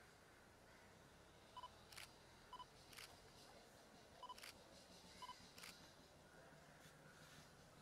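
Faint camera sounds, four times over: a quick double autofocus beep, then the click of the shutter a moment later.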